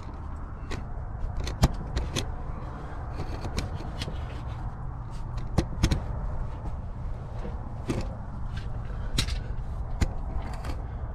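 Footsteps scuffing and crunching over the gritty earth and rock floor of a limestone cave passage, with irregular clicks and scrapes, over a steady low rumble.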